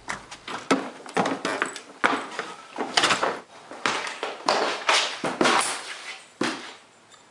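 A scuffle: an irregular run of knocks, thumps and scraping scuffs, roughly two or three a second, stopping shortly before the end, as a person is shoved roughly into a cell.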